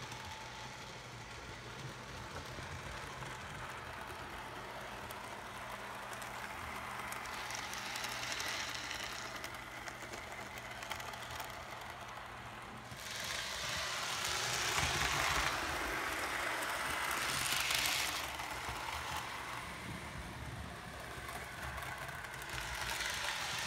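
Mehano HO-scale 2-10-2 steam locomotive model running on the layout track, its small electric motor and wheels making a steady running noise. It gets louder as it passes close by, most of all between about 13 and 18 seconds in.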